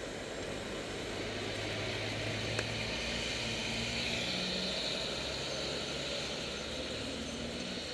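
Road traffic on a wet street: vehicles passing with tyres hissing on the wet tarmac over a low engine hum, the hiss swelling midway as a vehicle goes by and easing off again.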